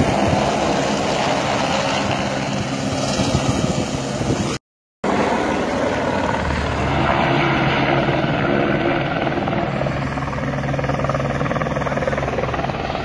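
Military rescue helicopter's rotor and engine running steadily and loud. The sound cuts out completely for a moment about four and a half seconds in, then resumes.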